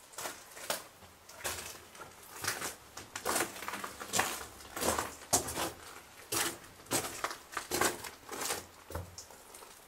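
Footsteps crunching underfoot at a walking pace, about two steps a second.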